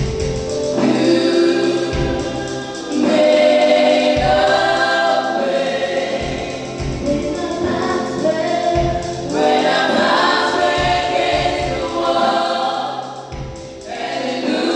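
A church choir and congregation singing a gospel hymn, backed by a steady drum beat.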